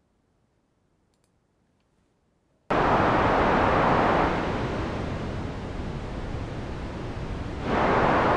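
White noise through the low-pass filter of a Haken Continuum's EaganMatrix synthesizer engine: a loud, even hiss that cuts in suddenly after about two and a half seconds of near silence. In the middle it dulls and drops in level as a breath controller works the filter's bandwidth and slope, then grows brighter and louder again near the end, sounding like wind or surf.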